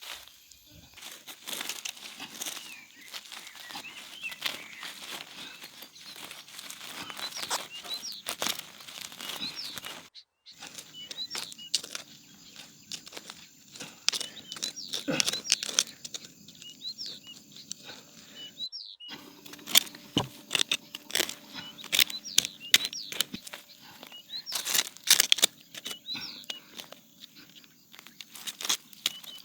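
Dense crackling and tearing of dry plant material handled by hand, with small birds chirping. The sound breaks off briefly twice.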